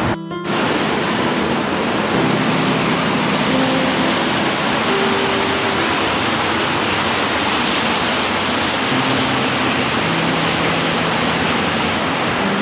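Steady heavy rain, a dense even hiss, with faint low hums coming and going underneath. The sound cuts out briefly just after the start.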